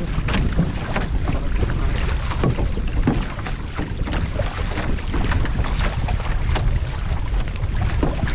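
Outrigger canoe crew paddling: repeated paddle splashes and water sloshing against the hull, over a steady rumble of wind buffeting the microphone.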